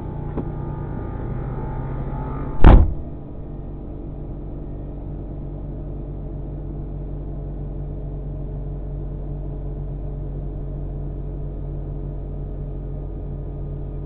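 Vehicle engine idling steadily, heard from inside the cab, with one loud short thump about two and a half seconds in.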